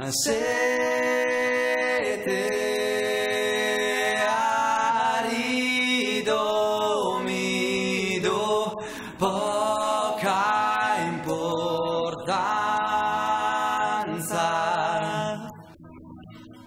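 Music: layered wordless singing in close harmony, held notes that slide into each new pitch, dropping away near the end.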